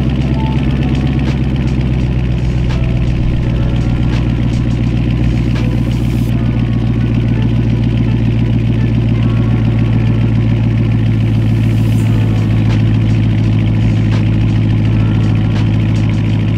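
Dodge Charger Scat Pack's 6.4-litre Hemi V8 idling steadily, a deep even exhaust note.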